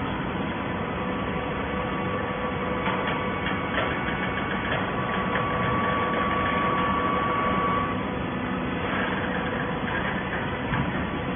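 Hydraulic waste paper baler running: a steady mechanical hum with a steady tone from the machine that stands out more clearly from about three seconds in until about eight seconds in, with a few light clicks along the way.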